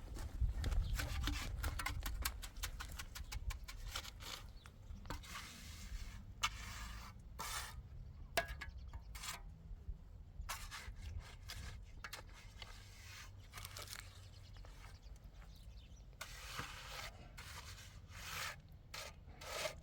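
Irregular scrapes and clicks, with a low rumble in the first few seconds.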